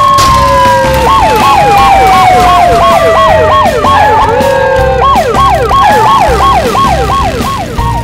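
Siren sound effect: a fast yelping wail rising and falling about two to three times a second, over a long, slowly falling tone in the first half.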